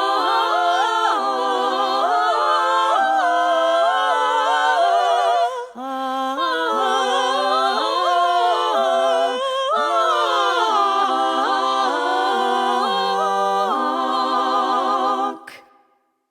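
Women's voices singing a wordless close-harmony passage a cappella, several lines moving together. It breaks off briefly about five and a half seconds in and fades out shortly before the end.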